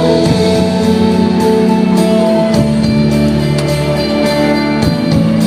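Worship band playing an instrumental passage between sung lines: sustained chords with guitar and a steady drum beat, the chord changing about halfway through and again near the end.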